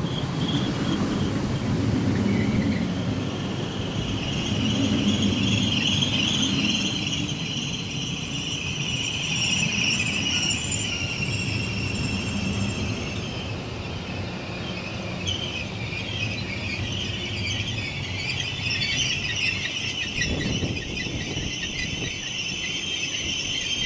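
ICE high-speed train rolling slowly into the platform with a high-pitched squeal from its brakes, several steady tones over a low rumble of wheels. The rumble fades in the second half as the train slows toward a stop.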